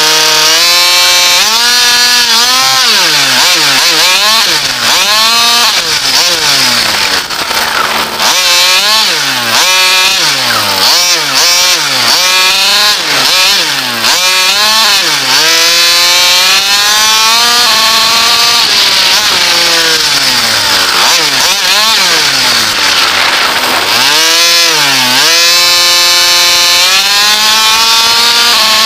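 King Motor 30.5cc two-stroke petrol engine of a large-scale RC buggy, heard close up from a camera on the car, revving up and down as the throttle is worked while driving. The pitch rises and falls every second or two, with a few longer steady runs at speed.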